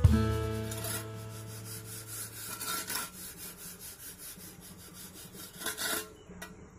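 Steel trowel and then a straight edge scraping and rubbing over wet cement mortar, in irregular strokes with a few louder scrapes. A strummed guitar chord rings out at the start and fades.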